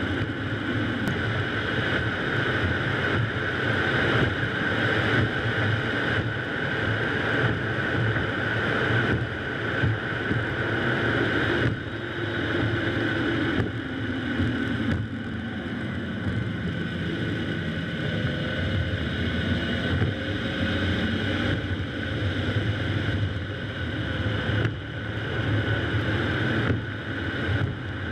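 Car driving along the road: steady tyre and road noise with the engine humming underneath, and wind buffeting the camera's microphone.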